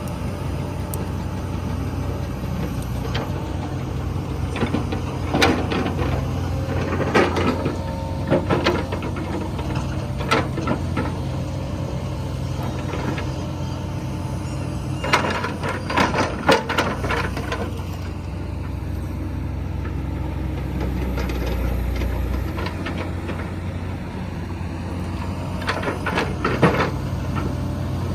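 Komatsu PC120 hydraulic excavator's diesel engine running steadily under working load, with several bursts of knocking and rattling as the machine digs and shapes soil.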